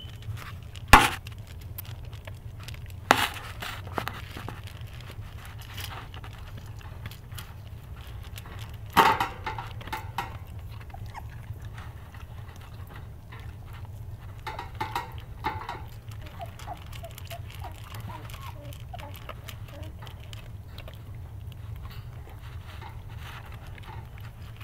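West Siberian Laika and her puppies eating dry kibble from a steel bowl: small clicks and crunches of kibble against the metal, with a few sharp knocks, the loudest about nine seconds in. A steady low hum runs underneath.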